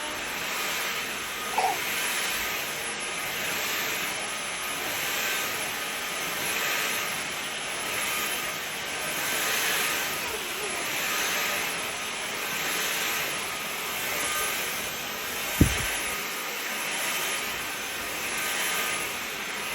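Vacuum cleaner running, its steady noise swelling and easing about every second and a half. A single short thump comes about three-quarters of the way through.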